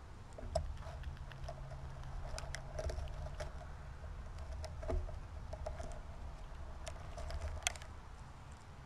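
Squirrel picking through a tray of birdseed close up: irregular small clicks and crackles of seeds and hulls being moved and bitten, over a low steady rumble.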